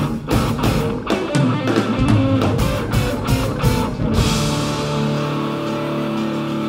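Live rock band playing: electric guitar, bass guitar and drum kit, with a quick run of drum hits. About four seconds in there is a cymbal crash, and the band holds a sustained chord.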